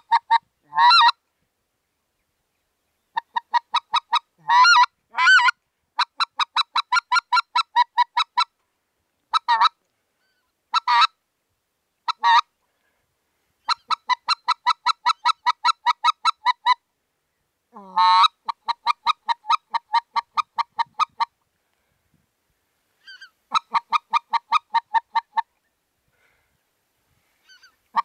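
Blown goose call (mouth call) sounding runs of short, rapid honks, about four a second, broken by a few longer drawn honks that bend in pitch. It is a Canada-goose-style comeback call, used to turn geese back toward the hunter.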